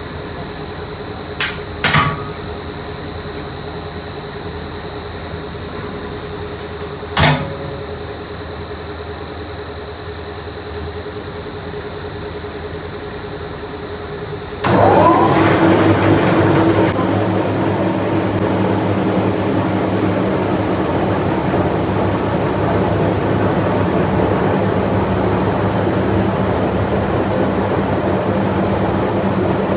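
Industrial machinery running steadily with a high steady whine, broken by a few sharp knocks. About halfway the sound switches abruptly to louder machinery noise with a low hum.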